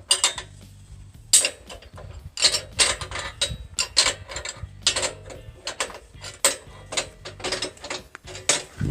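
Ratchet wrench clicking in short, irregular runs of strokes as bolts on the sawmill track's leveling feet are turned.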